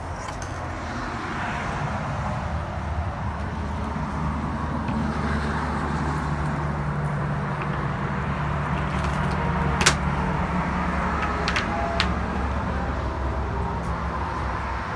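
An engine running steadily with a low hum, growing louder over the first few seconds, with a few sharp clicks near the middle.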